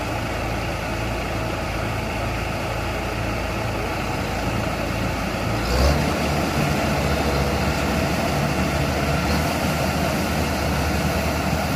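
Kubota DC70 combine harvester's diesel engine running steadily. About six seconds in there is a short knock and the engine note changes and grows a little louder, as it takes up load.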